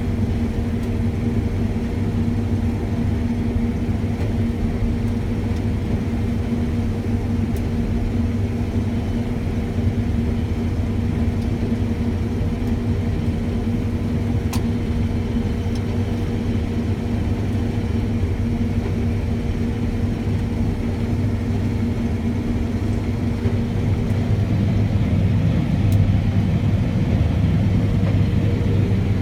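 John Deere combine harvester running steadily while cutting wheat: a continuous engine and machinery hum that grows a little louder in the last few seconds.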